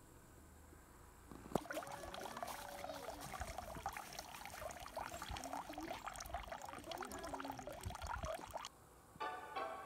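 Water running in a thin stream from a bamboo spout and splashing into a full stone water basin. It starts suddenly about one and a half seconds in and stops shortly before the end.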